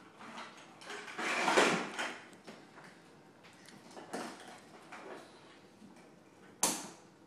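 Hard plastic of a ride-on toy dump truck scraping and rattling as its bed and the toys in it are moved, loudest about one and a half seconds in, then a sharp knock near the end.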